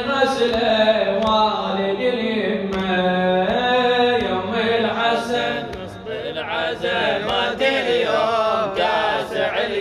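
Male voices chanting a wavering, wordless melodic line in a Shia latmiya lament, over a steady low vocal drone.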